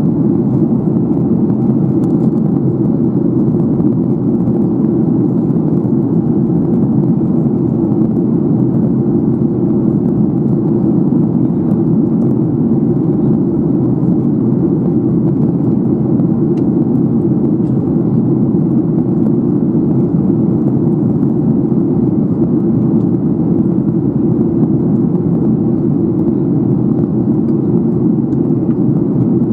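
Steady drone of a Boeing 737-800 in flight, heard inside the passenger cabin: its CFM56-7B jet engines and the rush of air over the fuselage, a low, even rumble that does not change.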